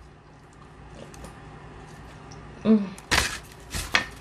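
A person chewing a mouthful of cheese pizza, close to the microphone: quiet at first, then a short hum about two and a half seconds in, followed by a few sharp, loud mouth smacks near the end.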